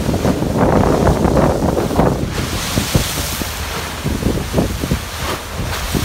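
Strong wind buffeting the microphone over choppy lake waves breaking and splashing against a dock and seawall. The surge is loudest in the first two seconds, then goes on in uneven gusts.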